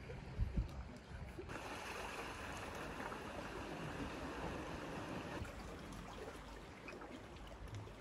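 Sea water washing and trickling among shoreline rocks, a steady hiss that swells about a second and a half in and eases off after about five seconds. A couple of low thumps come near the start.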